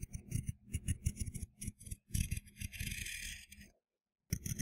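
Pencil scratching on paper as it traces around a block: a quick run of short scratchy strokes, then a steadier scratch. It stops briefly and starts again near the end.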